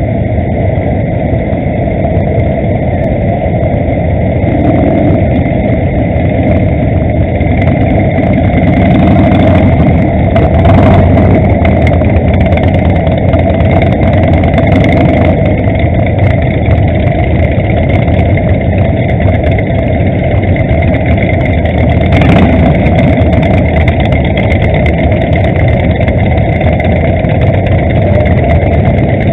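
Many motorcycle engines, mostly cruisers, idling together and rolling off slowly as a large group, loud and steady, heard from among the pack. A couple of brief sharp noises cut through, about ten and twenty-two seconds in.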